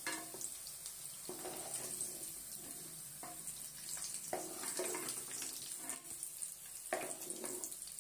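Hot oil sizzling in a kadai around fried baby potatoes, steady and hissing, while a steel ladle scoops them out, scraping and knocking against the pan several times.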